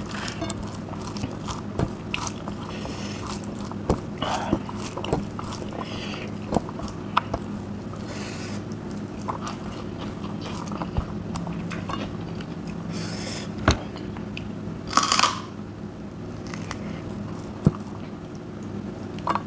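Close-up eating sounds of a person chewing rice and curry eaten by hand: wet chewing and mouth noises with scattered crunchy bites and sharp clicks. A steady low hum runs underneath.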